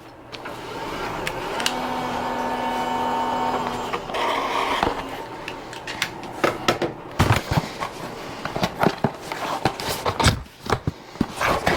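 Filament feed motor of a Bambu AMS 2 Pro running steadily for about four seconds, pulling a newly inserted filament into its slot. Then come a scatter of plastic clicks and knocks from a spool and filament being handled.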